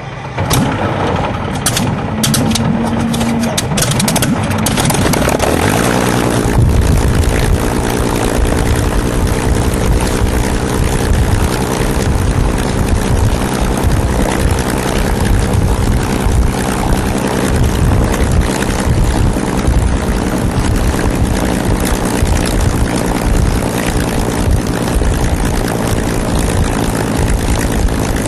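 Supermarine Seafire XVII's Rolls-Royce Griffon V12 engine being started: the propeller turns over with irregular pops and a brief whine. About six seconds in the engine catches and then runs steadily.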